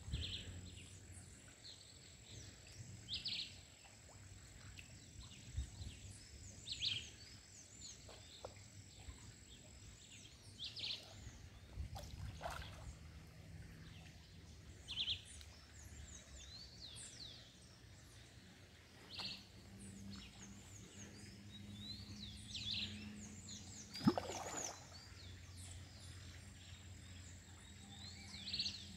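Faint pondside ambience with birds calling: one short high call repeats every three to four seconds among other small chirps. A thin steady high tone stops about a third of the way in, and a single sharp sound comes about 24 seconds in.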